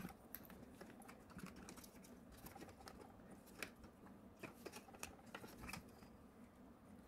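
Faint, scattered small clicks and ticks of hands handling a 3D printer module's plastic housing and wiring during disassembly, over near silence.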